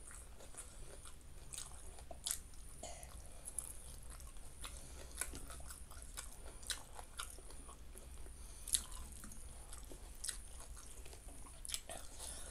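Close-up eating sounds of a person chewing a mouthful of rice and fish eaten by hand, with irregular sharp wet mouth clicks and smacks.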